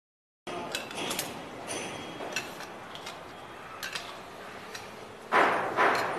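Metal clinks and taps of a spanner on anchor-bolt nuts in a concrete wall, with two louder rough bursts near the end.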